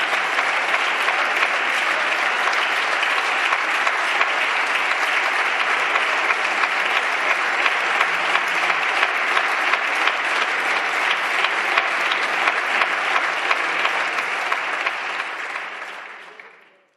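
Sustained applause from a large roomful of people clapping, dense and steady, fading out near the end.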